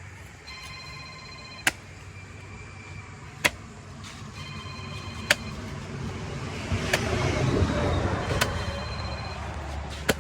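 A cleaver or heavy knife chopping through a large catla carp on a cutting block, with six sharp chops coming steadily about every second and a half to two seconds. Between the chops a steady tone sounds three times, with market and traffic noise that grows louder in the second half.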